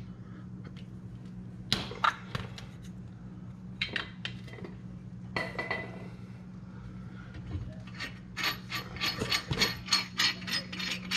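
Hand tools working on a brake caliper: scattered metallic clicks and clinks, then from about eight seconds in a fast, even run of metal clicks, several a second.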